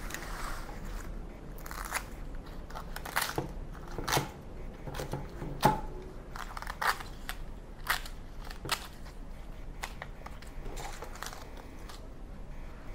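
Brittle dried beancurd sheet crackling as it is cut with scissors and handled, in irregular crisp snaps about once a second.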